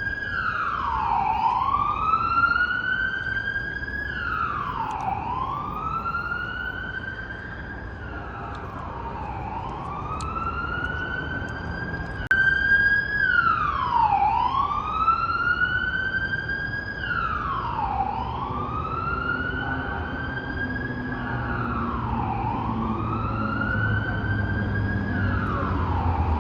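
Police car siren on a wail, each cycle rising slowly over about three seconds and dropping quickly, repeating about every four seconds, over a steady rumble of road traffic that grows louder near the end.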